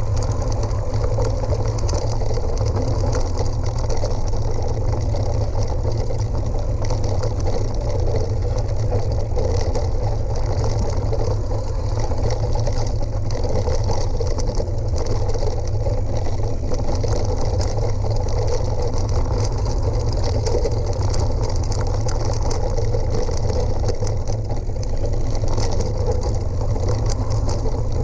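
Steady, loud rumble and rattle of a ride down a gravel forest track at moderate speed, with a crackle of stones under the tyres over the top.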